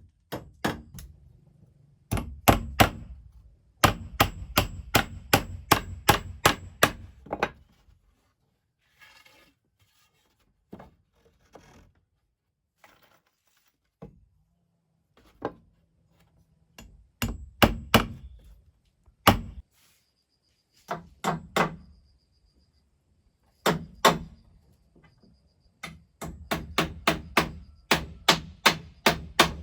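Hammer striking wood in runs of quick, evenly spaced blows, about three a second, with pauses of a few seconds between runs.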